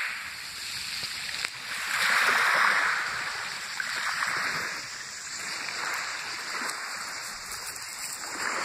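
Small waves washing up on a pebble beach, the wash swelling and fading every second or two, loudest about two seconds in.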